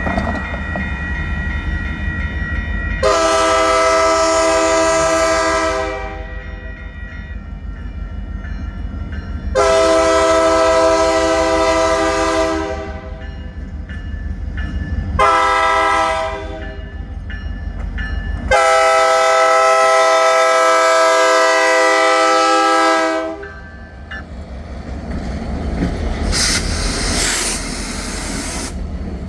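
BNSF diesel locomotive's multi-tone air horn sounding the grade-crossing signal: two long blasts, one short and a final long one, over the low, steady running of the locomotive. A higher rushing noise comes up near the end.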